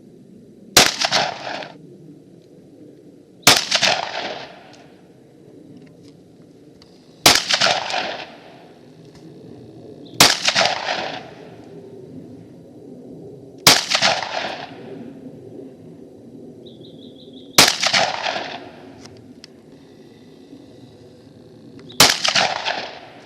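Rifle fired seven times as single aimed shots, one every three to four seconds, each crack followed by a short echoing tail.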